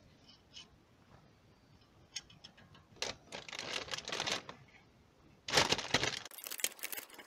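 Metal clicks and rattles of a plier-type oil filter wrench being fitted and worked on a Suzuki Every's spin-on oil filter. About five and a half seconds in there is a louder stretch of rustling and scraping.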